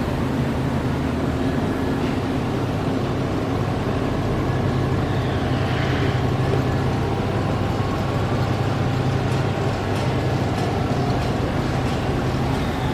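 Cooling fans of an APS Gold Flow GF-12HC three-zone reflow solder oven running with a steady hum, the oven powered up and heating. A few faint ticks come in over the last few seconds.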